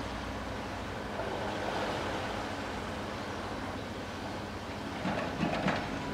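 Log-handling crane's engine running steadily under a rushing noise of wind. About five seconds in come a few knocks as its grapple closes on the logs on a timber lorry's trailer.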